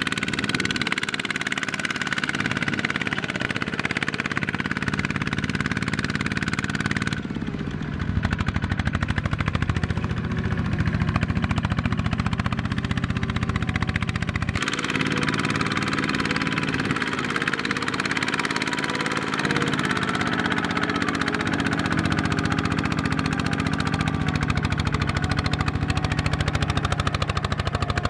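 Single-cylinder diesel engine of a two-wheel walking tractor chugging steadily under load as it pulls a loaded trailer through a muddy field. The sound changes abruptly twice, about 7 and 15 seconds in.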